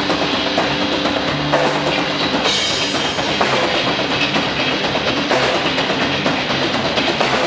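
Live rock band playing: drum kit with bass drum and guitar at a steady loud level.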